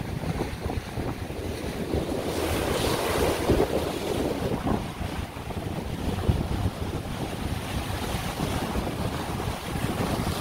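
Sea surf breaking against and washing through a rock and concrete-block breakwater, with a bigger wash about two to four seconds in and another wave hitting the rocks near the end. Wind rumbles on the microphone.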